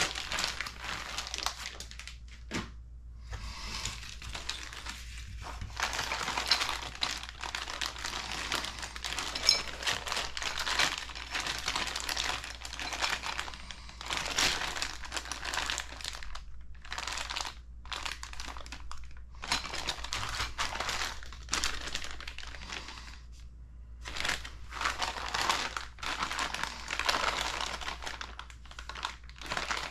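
Clear plastic zip bags of kit parts crinkling as they are picked up and handled, on and off with short pauses.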